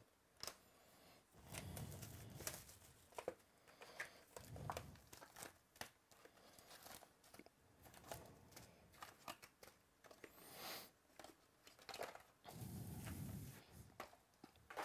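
Plastic shrink-wrap being torn and crinkled off a 2017 Topps Chrome Baseball card box, then the foil card packs handled and set down in stacks. It comes as quiet, irregular rustles and clicks, with a couple of longer crinkling stretches.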